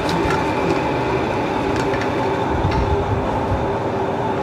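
Steady electric machine hum with a constant whine running through it, with a few light knocks from handling.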